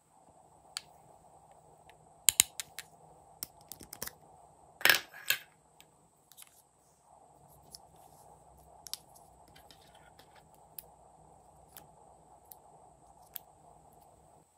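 Hard plastic makeup packaging (lipstick tubes and caps) handled and clicked: sharp clicks and taps, the loudest a pair about two seconds in, then a short rasping burst about five seconds in, followed by sparse single clicks.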